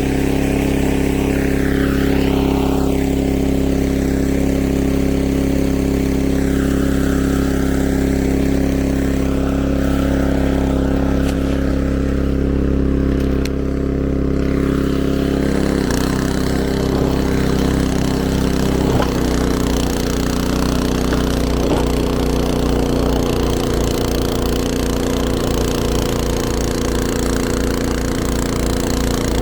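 Snowblower's small engine running steadily, its pitch dropping slightly about halfway through and wavering a little after.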